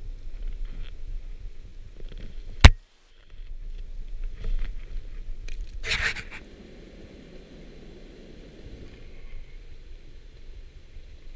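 Wind buffeting the microphone in a low rumble, broken by one sharp loud click about two and a half seconds in and a brief cut-out, then a short noisy burst around six seconds before a quieter steady hiss.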